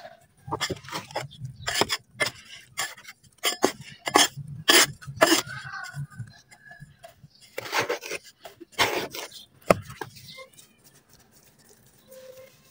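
Wet red dirt being worked by hand into slabs: a quick run of scrapes, pats and slaps that stops about ten seconds in.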